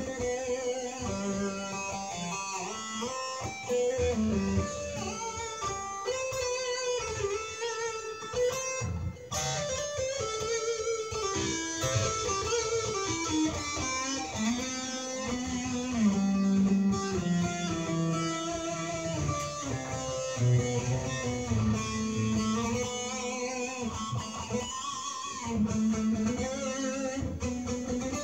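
Solid-body electric guitar playing a melodic line of changing picked notes, some of them sliding in pitch, with no amplifier: the guitar runs through an old DigiTech RP6 multi-effects unit into a home stereo.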